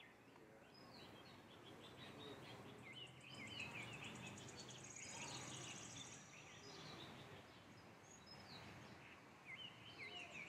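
Faint outdoor ambience of small birds chirping on and off, with a rapid high-pitched trill from about three to seven seconds in.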